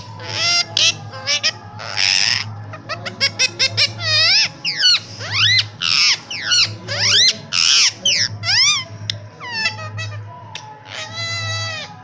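Indian ringneck parakeet chattering: a fast run of rising and falling whistles and chirps, broken by a few short harsh squawks and a buzzy repeated call near the end.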